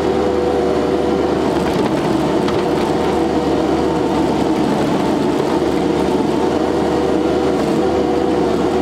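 Engine of an SCL 1000 compact loader running at a steady speed, with a constant hum.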